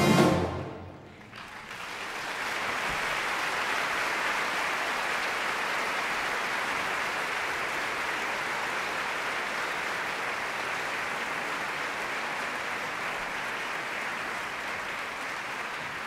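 The orchestra's last chord breaks off right at the start, then audience applause rises over about two seconds and carries on steadily.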